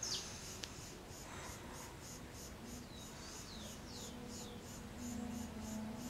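Insects chirping in a steady rhythm, a high pulse about three times a second, with a few short falling chirps about halfway through and a faint buzzing hum that comes and goes, strongest near the end.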